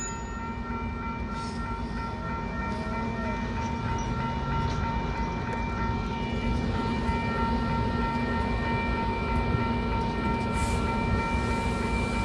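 Stainless-steel bilevel commuter coaches rolling slowly along the platform and coming to a stop: a low rumble under a steady whine of several held high tones.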